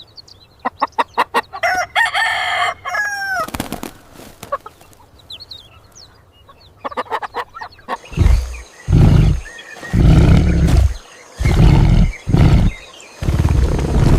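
Hens clucking and a rooster crowing in the first few seconds, with a few fainter clucks later. From about eight seconds in, a series of loud, low sounds repeats roughly once a second from a different source.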